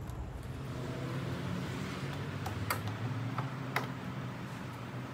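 A few sharp clicks in the middle, as hands work at the car's front grille, over a steady low hum.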